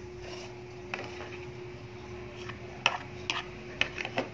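A metal fork stirring fermented fish paste in a plastic tub, with scattered light clicks and taps of the fork against the tub, mostly in the second half. A faint steady hum runs underneath.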